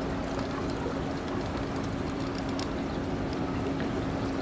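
Boat motor running steadily with a constant low hum, over the rushing noise of the river current.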